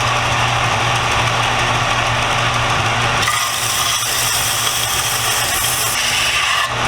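Belt sander running with a 120-grit belt, grinding down a wooden handle blank: a steady motor hum under a rasping hiss that shifts about three seconds in as the work is moved against the belt. The fine belt cuts slowly.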